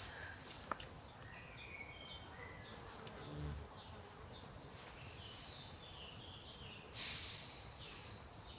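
Faint woodland ambience: small birds chirping in the distance, short high chirps scattered throughout, with an insect buzzing briefly about halfway through. There is a click near the start and a short rustle about seven seconds in.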